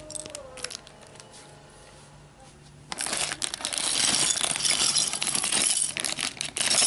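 Plastic bag of Lego pieces being torn open and handled: a dense crinkling with many small clicks of plastic parts, starting about three seconds in.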